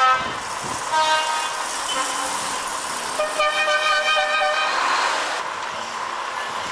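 A vehicle horn sounding three times: two short blasts, then a longer one of over a second, over a steady background hiss.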